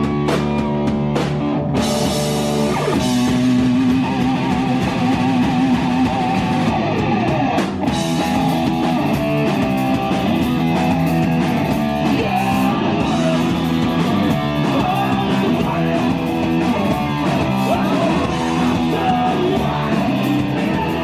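Loud rock music with distorted electric guitars, bass and a drum kit, a horror-punk band's song. The sound grows fuller about two seconds in and carries on steadily.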